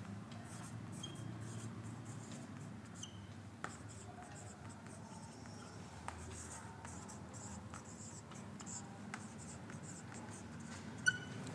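Marker pen writing on a whiteboard: faint scratchy strokes with a few light taps, and a short squeak near the end.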